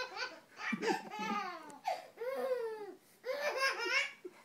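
A baby squealing and laughing in excited bursts, about four of them, each a high call that rises and falls in pitch.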